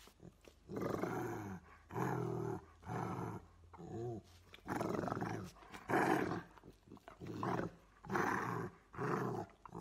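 A Rottweiler and a Bernese mountain dog growling at each other in play as they wrestle and mouth: about ten short growls, each under a second, one after another.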